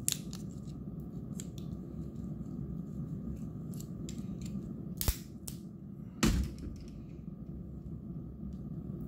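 Sharp plastic clicks and snaps as the circuit-board strip and its tabs are worked free of the plastic holders on a pack of 18650 cells. Two louder snaps come about five and six seconds in, over a steady low hum.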